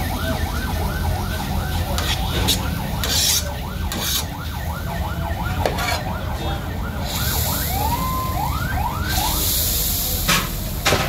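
An emergency-vehicle siren in a fast yelp, about three or four rising sweeps a second, which changes to a few slower, longer sweeps near the end. Under it is a steady low rumble, with a few sharp metallic clanks.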